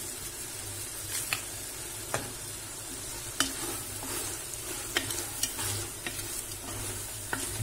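Green beans and tomato sizzling as they fry in a pressure cooker pot, stirred with a wooden spoon that knocks against the pot's side a few times.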